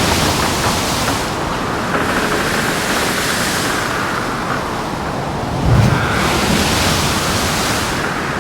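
A ship in heavy seas: a steady rush of waves and wind, with surging washes of spray every few seconds and a low thump about six seconds in.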